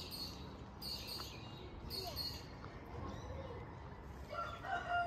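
A rooster crowing once near the end, a long drawn-out held call. Before it come three short, high chirps in the first two seconds, over a low outdoor background.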